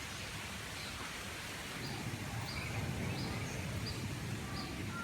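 Outdoor bird-park ambience: a steady hiss and low rumble, with a bird repeating short, high chirps about twice a second from about two seconds in.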